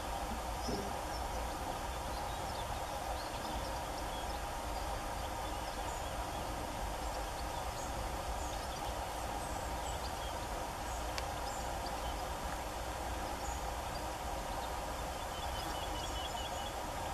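Steady outdoor background noise, a hum and hiss with a low rumble, with faint scattered bird chirps and a short rapid run of ticks near the end.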